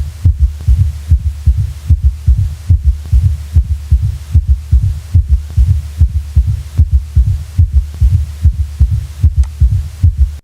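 Auscultated heart sounds in a quadruple rhythm (quadruple gallop): a third and a fourth heart sound added to the first and second, giving four low thuds per heartbeat at a normal heart rate, an abnormal finding. The thuds repeat evenly over a steady low hum and stop abruptly near the end.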